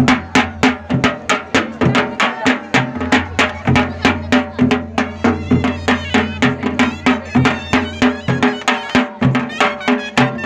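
Himachali folk drums, dhol-type drums beaten with curved sticks, playing a fast steady dance rhythm of about four strokes a second. A high wavering wind instrument joins in about halfway through.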